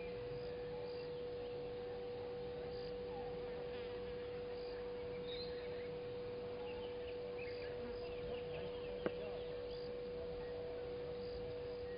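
A steady hum at one unchanging pitch, with faint short bird-like chirps over it and a single sharp click about nine seconds in.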